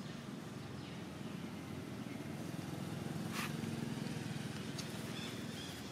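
A motor engine running steadily with a low hum that swells a little around the middle and eases off near the end, with one sharp click about three and a half seconds in.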